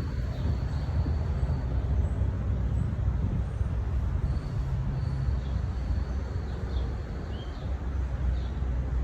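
Steady low rumble of city traffic, with birds chirping now and then in short high notes.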